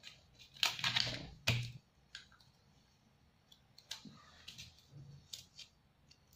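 Paper rustling and crinkling as a child handles a sheet of paper stickers in the first two seconds, then scattered light clicks and taps as stickers are peeled and pressed onto a paper worksheet on a tabletop.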